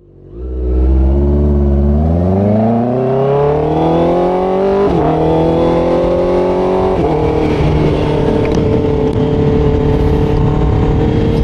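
Motorcycle engine accelerating, its pitch climbing steadily, then shifting up about five and seven seconds in and settling into a steady cruise.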